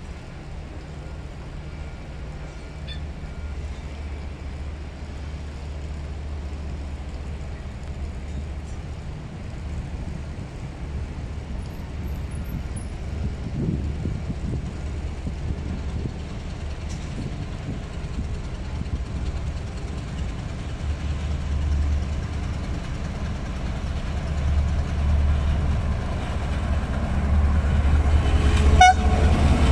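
KTM Class 26 diesel locomotive's engine rumbling low and steady as the train draws slowly closer, growing steadily louder, with a short sharp clack about a second before the end.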